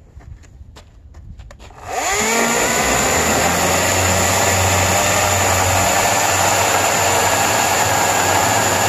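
EGO 14-inch cordless electric chainsaw spinning up with a rising whine about two seconds in, then running steadily under load as it cuts through a square wooden timber. A few faint clicks come before it starts.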